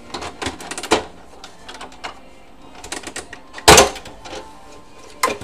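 Clicks and knocks of an Epson L120 printer's plastic outer case being worked loose and lifted off by hand, with one loud knock about two-thirds of the way through.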